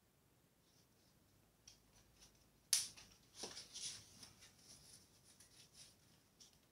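Faint metallic clicks and light rattling from parts being handled at a mountain bike's rear wheel hub: one sharp click a little under three seconds in, then a run of small ticks and rattles.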